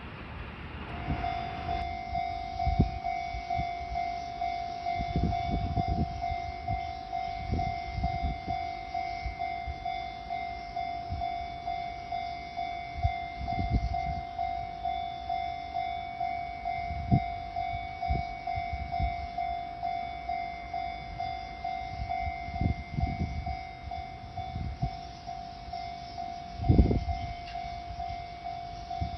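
Japanese railway level-crossing warning bell starting up about a second in and ringing on in a steady, evenly repeating ding, with irregular low thumps and rumble underneath.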